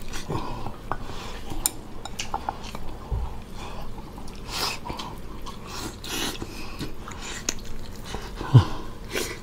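A person eating a cheese-covered pork rib: chewing and sucking the meat off the bone, with scattered light clicks of chopsticks against the bone and bowl. A single louder knock comes near the end.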